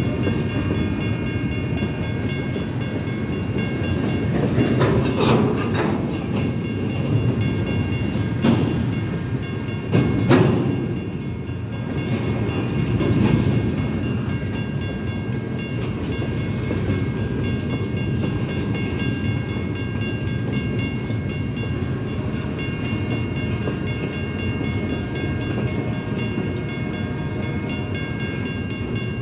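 Empty centerbeam flatcars of a CN freight train rolling through a grade crossing: a steady rumble of wheels on rail with a few sharp clanks, the loudest about ten seconds in. A crossing bell rings steadily over it.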